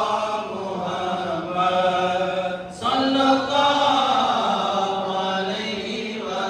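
Men's voices chanting Islamic dhikr, with a short break a little before the middle before the chant comes back louder.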